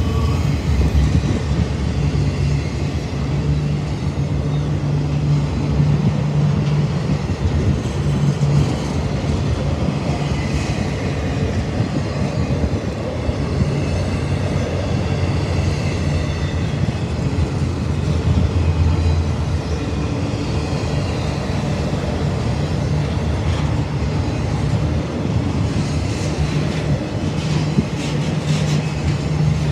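Intermodal freight train's container and trailer cars rolling past close by: a steady rumble of steel wheels on the rails.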